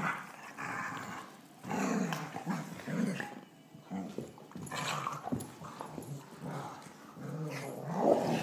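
Two Vizslas play-fighting, growling in short, rough bursts with brief pauses between them.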